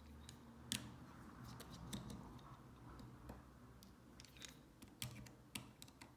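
Faint, scattered small clicks and ticks of a precision screwdriver working the tiny screws on an iPhone 6's screen-connector shield plate.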